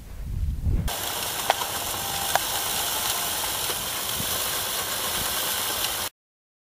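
Powered fertilizer broadcaster running with a steady hiss as it flings granules out, with a few sharp ticks over it. A brief low rumble comes before it, and the hiss cuts off suddenly about six seconds in.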